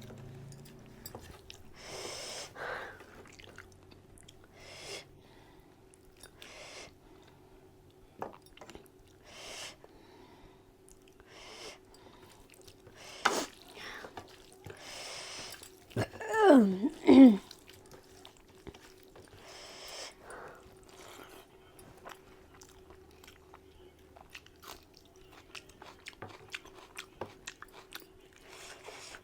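A person chewing and eating mutton curry close to the microphone: wet smacking and biting with scattered crunches, over a faint steady hum. About halfway through comes one short, loud pitched sound that bends up and down in pitch.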